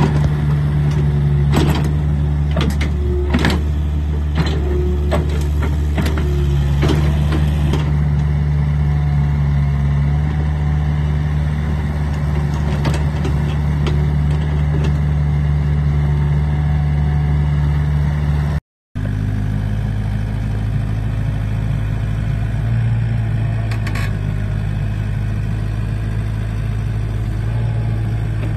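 Lovol FR60E2 mini crawler excavator's diesel engine running steadily as the machine slews, digs and raises its tracks, with a run of sharp metal clanks in the first several seconds. After a brief break about two-thirds of the way through, the engine note is lower.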